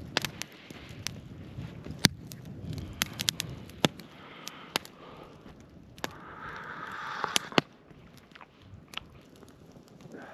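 Wood campfire crackling, with sharp, irregular pops from the burning split wood.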